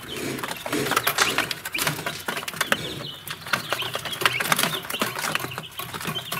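A brood of young chickens peeping, many short high chirps overlapping without a break, with scattered sharp taps as the chicks peck at the floor.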